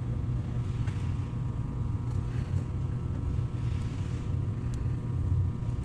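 Steady low hum, with a handful of faint, scattered clicks and scrapes as a thread tap in a T-handle is turned by hand into the paintball marker's metal body, cutting new threads for a helicoil insert.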